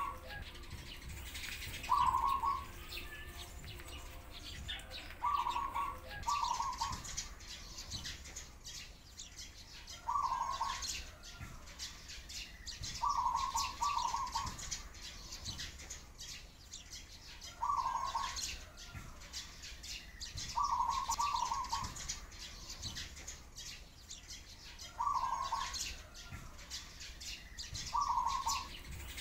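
Pigeons cooing in short repeated bouts every few seconds, some doubled, over sparrows chirping continuously in the background.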